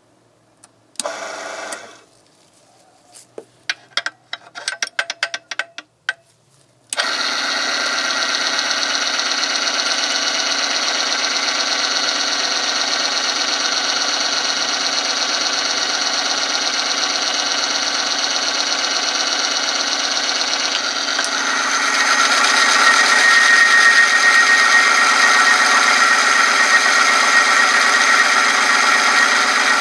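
A few clicks and knocks of handling, then about seven seconds in the oil film strength testing machine's electric motor starts and runs steadily, its spinning ring rubbing on the test sample in 0W-30 engine oil. About two-thirds of the way through, with a heavier weight on the lever arm, the running grows louder and a high steady whine from the loaded contact comes through.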